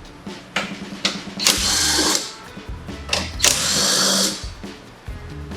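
Power tool driving a 12 mm socket in two bursts of about a second each, with a whine, backing out the passenger grab rail bolts. Background music runs underneath.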